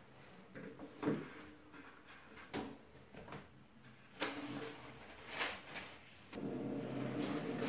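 A toilet roll being fitted onto a metal wall holder and its paper pulled and torn off: a few short knocks and brief rustles. About six seconds in, a steady hum starts and keeps going.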